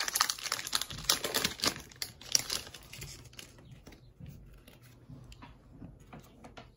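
Foil wrapper of a Pokémon booster pack crinkling as it is handled and opened. After about three seconds it thins to faint scattered clicks and rustles of cards being handled.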